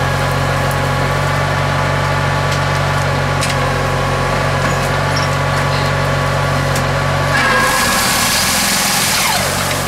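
Engine of an almond tree trunk shaker running with a steady hum. About seven and a half seconds in, the deep hum drops away and a loud hiss takes over for about two seconds.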